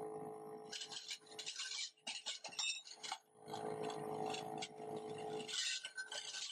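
Flat sheet-metal pieces scraping and clinking as they slide along a carpet-lined conveyor tray, over a steady machine hum that drops out for about a second around two to three seconds in.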